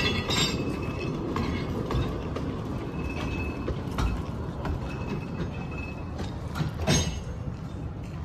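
Narrow-gauge railway carriages rolling slowly past on the track: a steady low rumble of the wheels with irregular clicks and knocks at the rail joints, the loudest about seven seconds in, and faint brief wheel squeals now and then.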